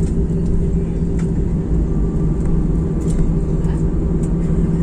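Steady cabin noise inside an Airbus A320 on the runway just after landing: a constant low engine drone with two steady tones over a dense rumble, holding an even level.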